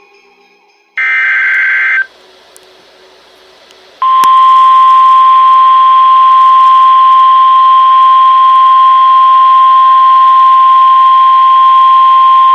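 NOAA Weather Radio emergency alert: a one-second burst of the SAME digital header's two-tone data warble about a second in. From about four seconds in comes the 1050 Hz warning alarm tone, a single loud, steady, unwavering beep that signals a warning about to be read.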